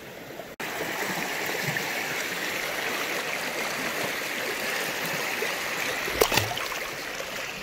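Shallow creek water running steadily over rocks, with a sharp knock about six seconds in.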